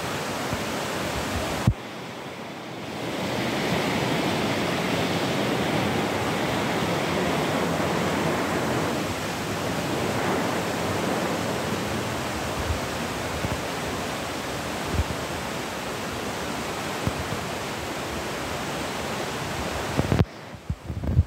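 Steady rushing of a fast, clear mountain river running over rocks and gravel, with some wind on the microphone. The level drops suddenly about two seconds in and swells back a second later, and drops again near the end with a few low knocks.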